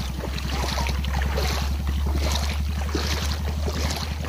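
Engine of a small motor boat (pompong) running steadily under way: a low, even drone with a fast regular beat, over a steady hiss of water and wind.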